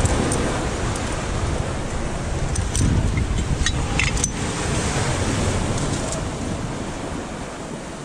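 Waves washing onto the shore, with wind buffeting the microphone in a steady low rumble. A few light clicks of gear being handled come around the middle.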